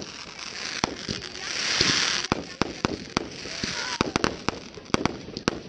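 Aerial fireworks going off: many sharp bangs of shells bursting overhead, coming thickest near the end, with a rushing hiss that swells up about two seconds in.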